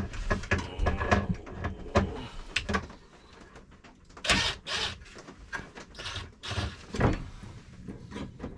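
Clunks, knocks and rattles of plywood boards and fittings being handled and fastened by hand, with a few short scraping or rustling bursts about four to seven seconds in.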